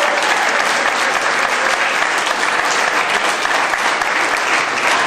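Audience applauding, with dense, steady clapping.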